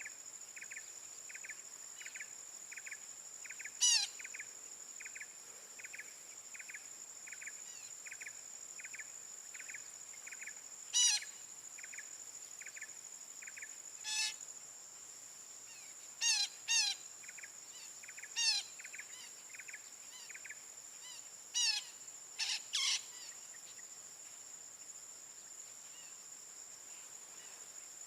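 Short, harsh parakeet calls, about nine of them, some in quick pairs, over a steady high insect drone. For the first half, a rapid even chirping repeats two or three times a second underneath.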